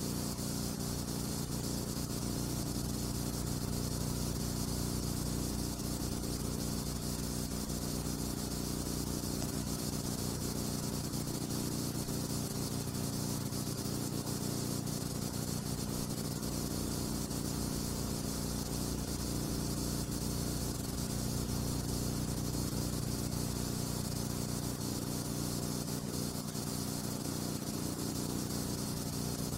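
Blank soundtrack of a silent film: steady hiss with a low, even hum, unchanging throughout and with no other sound.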